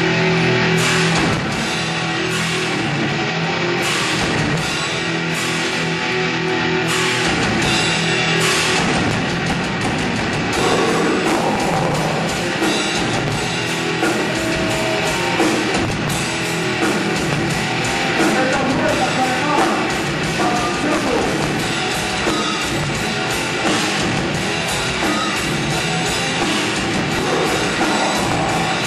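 Heavy metal band playing live, with distorted electric guitars and a drum kit. It opens with slow, heavy hits over held chords, then breaks into fast drumming about nine seconds in.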